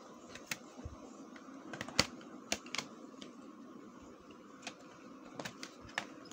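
Plastic CD jewel cases clicking and clacking as they are handled and moved against each other: a scattered series of sharp clicks, the loudest about two seconds in, over a faint steady hum.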